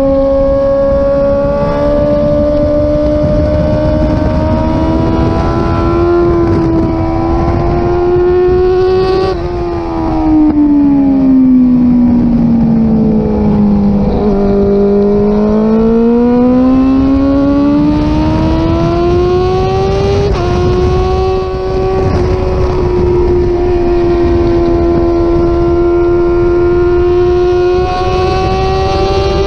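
Suzuki GSX-R 600 inline-four engine running hard on a race track, with wind noise underneath. It holds a high, steady pitch with small steps at gear changes, falls steadily over a few seconds about ten seconds in as the bike slows, then climbs again as it accelerates.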